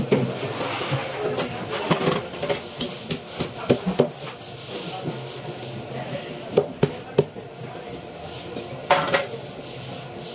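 Large knife cutting the head off a big red grouper on a plastic cutting board: irregular sharp knocks and cracks as the blade strikes bone and board, with scraping between them and a longer rasping burst near the end.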